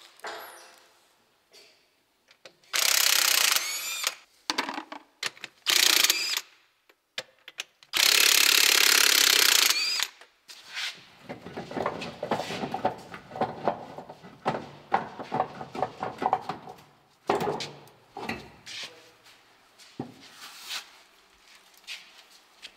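An impact wrench undoing the wheel nuts on a double-decker bus's rear wheel. It runs in three loud bursts, the last about two seconds long, rising in pitch as it spins. A long stretch of heavy metal knocking and clatter follows as the wheel is worked loose.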